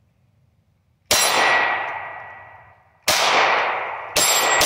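Glock 17 9mm pistol firing steel-cased rounds: three single shots, the first about a second in, the second two seconds later and the third a second after that. Each shot is followed by a long fading echo.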